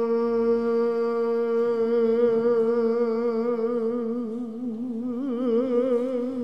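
Byzantine chant: a single voice holds one long sustained note, steady at first, then wavering with vibrato from about halfway through.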